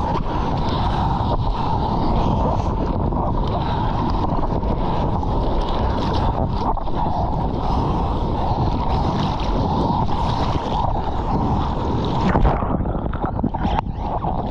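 Seawater rushing and splashing over a bodyboarder's GoPro at the surface, with wind buffeting the microphone. The sound turns muffled for a moment near the end.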